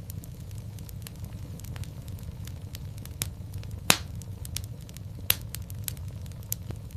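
Wood fire crackling in a fireplace: a steady low rumble of the flames with irregular sharp snaps and pops, the loudest pop just before the middle and another about a second later.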